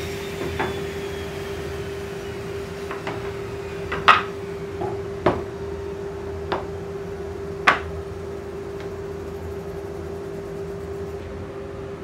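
Sharp knocks and clatter of plywood pieces being picked up and set down on a metal saw table, about half a dozen, the loudest about four and eight seconds in, over a steady low hum.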